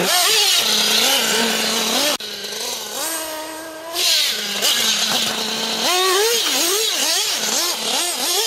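Radio-controlled car's motor revving, its pitch rising and falling. About two seconds in it settles to a quieter, steadier drone, and from about six seconds in it is blipped up and down in quick repeated revs, about one and a half a second.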